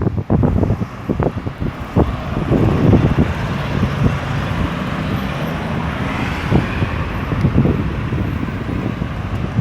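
Road traffic: car and truck engines passing steadily, with wind buffeting the microphone.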